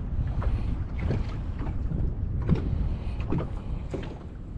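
Small waves slapping against a bass boat's hull at irregular intervals over a steady low rumble.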